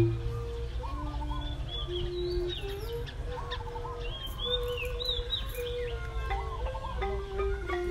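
Birds chirping repeatedly with short rising-and-falling calls, over background music of long held notes.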